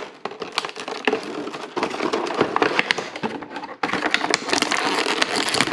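Hard plastic packaging and toy parts being handled: steady crackling with many quick clicks and taps.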